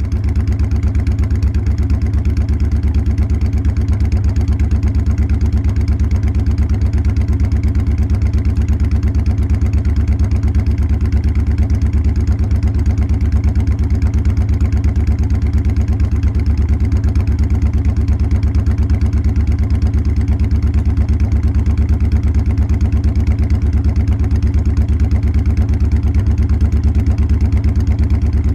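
Motorcycle engine idling steadily, heard right at the tailpipe: an even, rapid train of exhaust pulses with deep bass tones.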